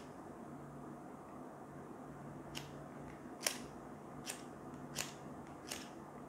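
Fire starter on an emergency camping keychain being struck repeatedly during a fire test: five short, sharp strikes about three-quarters of a second apart in the second half, the second one loudest.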